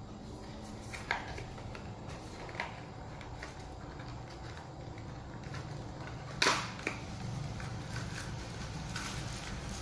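Spare drone propellers and their plastic packaging being handled: a few light plastic clicks and taps, the sharpest about six and a half seconds in, over a steady low hum.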